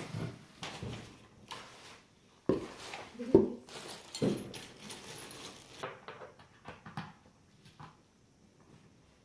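Short calls from a pet animal, a few in quick succession a few seconds in, the loudest three about a second apart.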